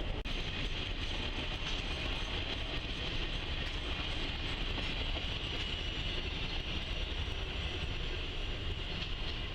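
Norfolk Southern Roadrailer freight train, truck trailers riding on rail bogies, rolling past: a steady noise of wheels on rail.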